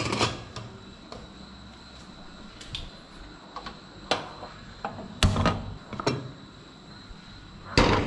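Steel pressure cooker knocking and clanking against the gas stove's metal burner grate as it is moved and set down, with a few light clicks from a hand-held gas lighter lighting the burner. The loudest knocks come about five seconds in and again near the end.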